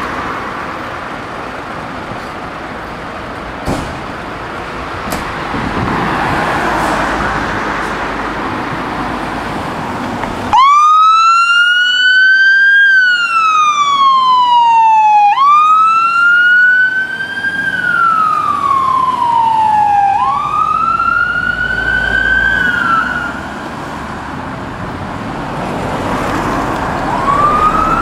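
A Scania water tender ladder fire engine's siren starting up in a wail about ten seconds in: each tone rises quickly and falls slowly, repeating several times, then breaks off and starts again near the end. Before it, and in the break, there is an even rumble of road traffic and engine noise.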